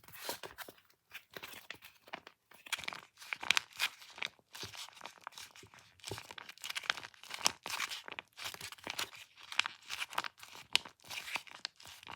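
Crinkly, crackling plastic and tape as a handmade taba squishy is squeezed and handled, with irregular crunchy crackles throughout.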